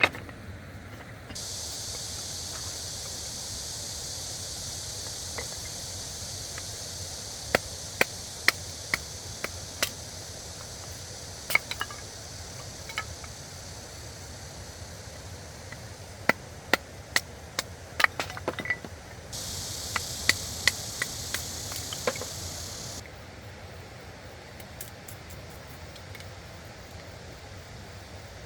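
A steady high hiss that switches on and off abruptly, once for several seconds near the start and again for a few seconds later on, with scattered sharp clicks and clinks in between, over a constant low rush of stream water.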